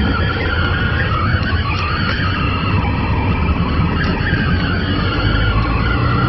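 Steady engine and road noise heard inside the cabin of a moving car.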